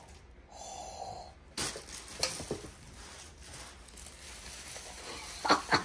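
Scattered taps and rustles of packaging being handled and opened, with a louder crackling burst near the end.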